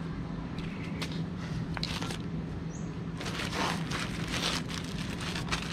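Plastic courier pouch crinkling as it is picked up and handled, a few short crackles at first and then continuous crinkling from about halfway through, over a steady low hum.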